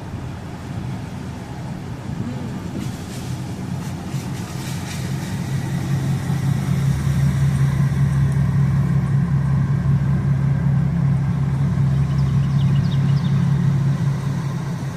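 Car engine and road noise, a steady low hum that grows louder about six seconds in and eases near the end.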